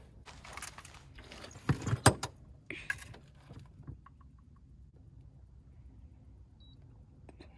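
Landing net with a big blue catfish in it being handled and hoisted up to be weighed: rustling and clattering, with a few sharp knocks about two seconds in, then quieter.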